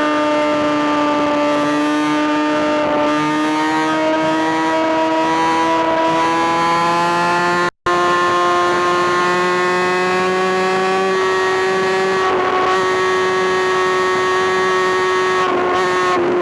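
Kawasaki ZX-6R inline-four engine running at high revs, a steady high-pitched note that slowly climbs. The sound cuts out completely for a moment about halfway through and comes back a little higher.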